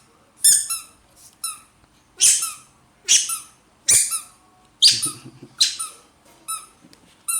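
A baby monkey squealing over and over: a string of about ten short, shrill, high-pitched cries, one or two a second.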